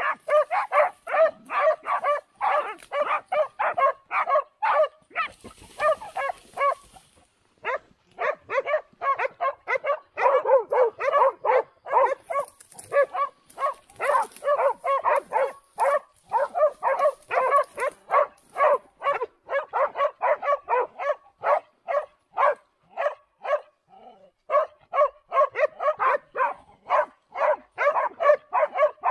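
Hunting dogs barking rapidly and almost without a break, about three barks a second, with short pauses about seven and twenty-four seconds in.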